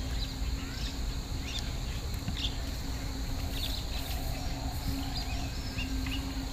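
Grassland ambience: scattered short bird chirps and calls over a steady high-pitched insect drone and a low rumble.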